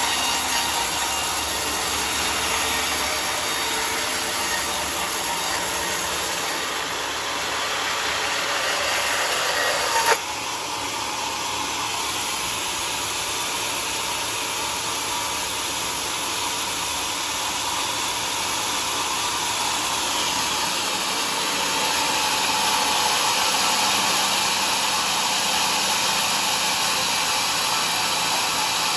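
Homemade sawmill's blade cutting through wood, a steady rasping saw noise, with one sudden sharp crack about ten seconds in.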